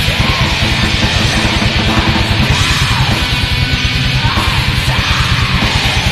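Black metal recording: a dense wall of distorted electric guitars over fast, relentless kick-drum blasting.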